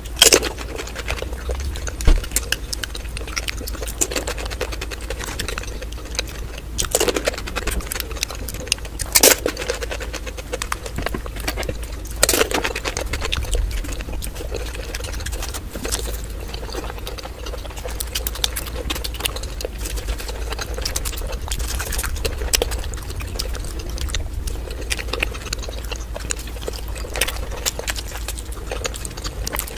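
Close-miked eating: a pani puri shell crunching right at the start, then irregular chewing and crunching of fried snacks such as chilli bajji. A few bites in the first dozen seconds are the loudest, and softer chewing follows, over a steady low hum.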